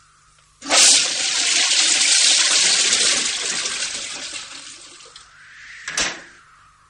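A loud rush of water like a flush starts suddenly about half a second in and dies away over four or five seconds. A short second burst comes near the end.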